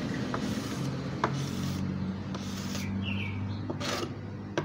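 A metal spatula scraping and clicking lightly against the wood of a Venezuelan cuatro as epoxy glue is spread to seal the pores, with a few sharp clicks and a short scrape near the end, over a steady low hum.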